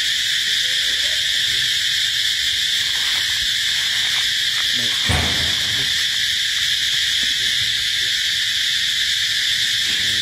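Steady, high-pitched drone of a forest insect chorus, with one dull thump about five seconds in.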